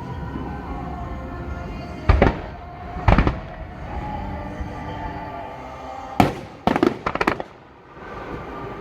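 Aerial fireworks bursting: sharp booms about two and three seconds in, then another bang about six seconds in followed by a rapid string of crackles. Music plays steadily underneath.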